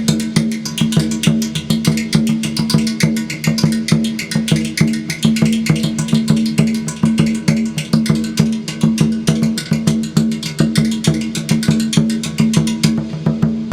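Instrumental music: fast, even percussive strokes over a steady low droning tone. The sound thins just before the end as a rattle-like sound takes over.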